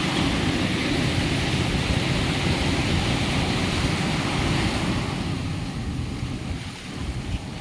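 Sea surf washing on the shore with wind buffeting the microphone; the hiss of the surf eases off about five seconds in.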